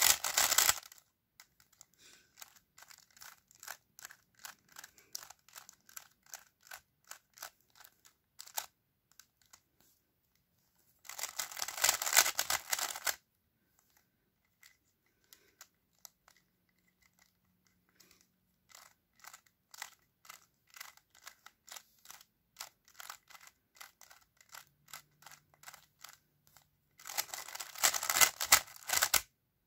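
A plastic 3x3 speed cube being turned by hand: runs of separate clicking layer turns, broken by three bursts of rapid clacking turns at the start, about twelve seconds in and near the end.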